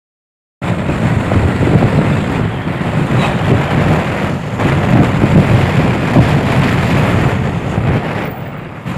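Heavy wind buffeting the microphone on a moving motorbike: a loud, continuous low rumble mixed with riding noise. It cuts in abruptly about half a second in, after silence.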